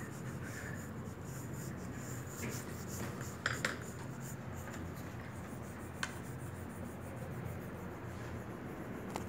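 Pencil drawing on paper, a soft steady scratching and rubbing, with two light taps about three and a half and six seconds in.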